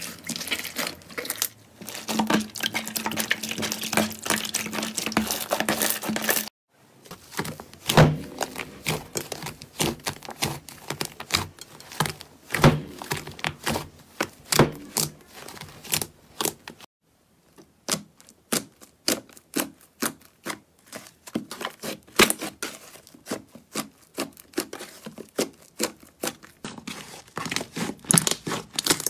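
Slime being squeezed, stretched and pressed by hand in a bowl: quick trains of sticky crackles, clicks and pops, with two short breaks.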